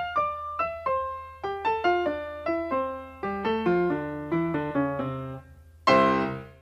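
Short intro jingle on a piano-like keyboard: a quick run of single notes that steps downward in pitch over a low, steady drone, closed by a loud final chord near the end.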